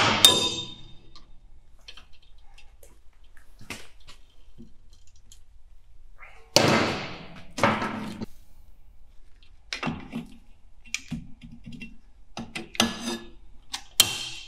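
Intermittent knocks, clinks and scrapes of metal from pliers and brake parts being worked at a car's rear drum-brake backing plate while the handbrake cable is fitted, with two stronger scraping clatters about halfway through and a run of small clicks near the end.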